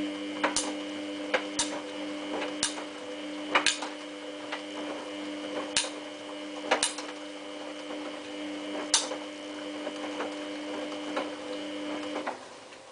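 Samsung WF8804RPA washing machine's drum motor turning the drum during a prewash, a steady whine that cuts off near the end, with irregular sharp clicks and knocks from the tumbling load over it.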